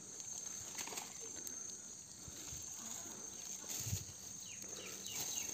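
Hands digging and tearing through the soft, fibrous rotten pith of a sago palm trunk in search of sago grubs, giving faint scattered rustles and crunches with a few small knocks. A steady high insect drone carries on underneath.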